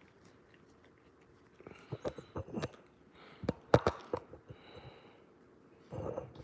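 Month-old Labrador puppy sniffing and mouthing at a person's hand, making short clicking snuffles in two bursts, about two and four seconds in.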